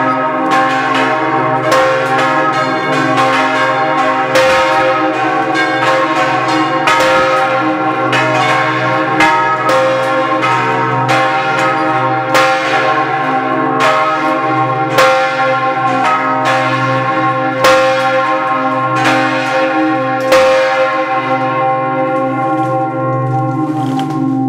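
Several parish church bells swinging in a full peal, their strokes landing irregularly and overlapping in a loud, continuous ringing with a long hum beneath. The strokes thin out near the end.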